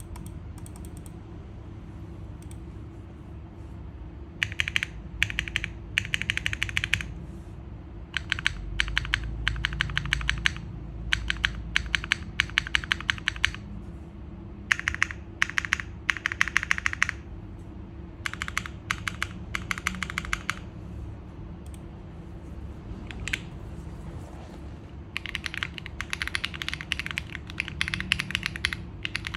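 Typing on a QK65 V2 gasket-mount mechanical keyboard with FBB F3 switches on an aluminium plate and JTK keycaps, in quick runs of keystrokes. The typing stops for a few seconds about two-thirds of the way in, with a single keystroke during the pause, then starts again near the end.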